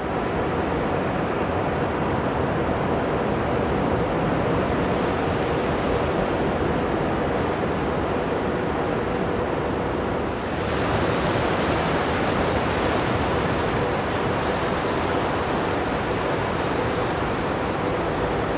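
Car ferry Mega Andrea passing close at harbour speed: a steady low hum from its machinery under a broad hiss of wind and water. About halfway through, the hiss suddenly turns brighter.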